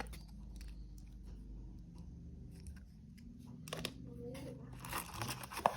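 Handling noises from unpacking a phone box: a few sharp clicks and light rustling of packaging over a steady low hum.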